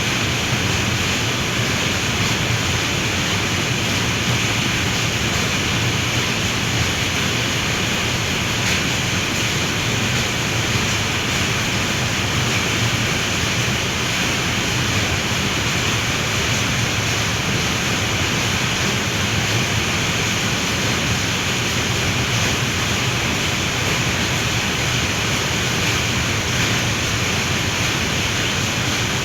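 Heavy rain pouring down steadily, a dense unbroken hiss.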